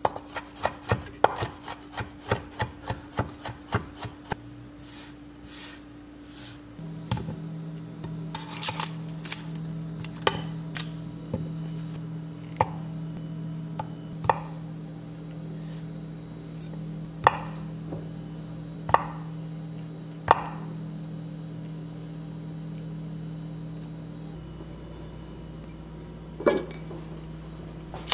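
Chef's knife chopping thyme on a wooden cutting board: a quick run of chops, about three or four a second, for the first few seconds. It is followed by slower, separate knocks of the blade on the board as butter is sliced, with a steady hum coming in after a few seconds.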